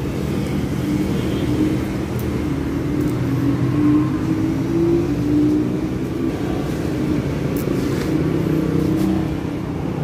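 A motor vehicle engine running steadily, its pitch drifting slowly up and down.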